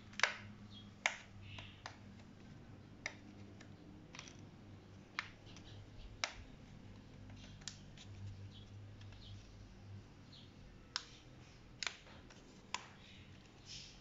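Side-mirror glass being pried off its plastic backing by hand: scattered, irregular sharp plastic clicks and ticks as the edge is worked loose, the loudest about a second in.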